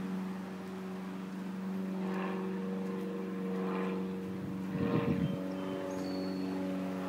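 A small engine running steadily, a constant droning hum with no change in speed. A brief, thin, high chirp sounds about six seconds in.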